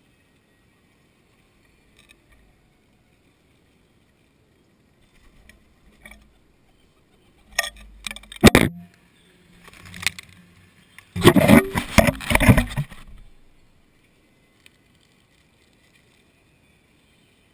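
Feral pigeons' wings flapping close to the microphone as birds take off and flutter around it, in loud flurries of quick wingbeats, a short one about eight seconds in and a longer one around twelve seconds.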